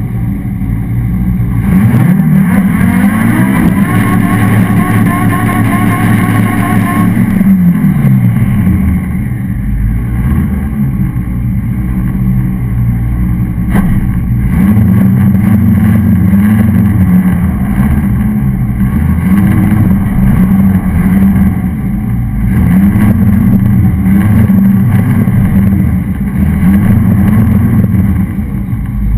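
Volvo 745's engine revved up about two seconds in and held high for around five seconds in a tyre-smoking burnout, then falling back. After that it runs at low revs, rising and easing off again and again.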